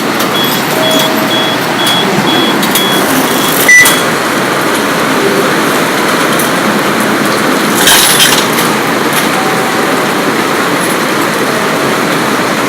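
Very heavy rain pouring down in a loud, steady hiss. Over the first few seconds a row of short high beeps sounds about twice a second.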